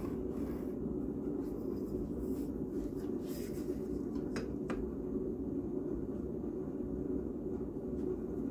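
Pencil drawing lines along a steel ruler on paper: faint scratching strokes, with two light clicks about four and a half seconds in, over a steady low background rumble.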